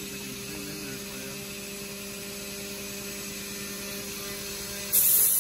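CNC vertical machining centre milling an aluminium block under flood coolant: a steady machine drone with a couple of steady tones. About five seconds in it suddenly gets louder, with a hiss of coolant spray.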